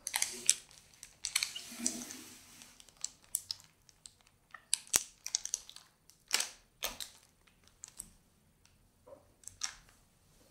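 Metallized anti-static bag crinkling in irregular crackles as the motherboard is shifted on it, with a few sharp clicks.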